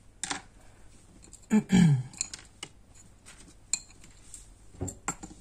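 Craft tools and supplies being handled and set down on a cutting mat: a run of small clicks and clatters from plastic and metal, with a louder scrape of falling pitch about one and a half seconds in.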